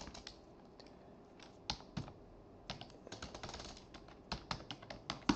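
Typing on a computer keyboard: scattered single keystrokes, with a quick run of keystrokes about three seconds in.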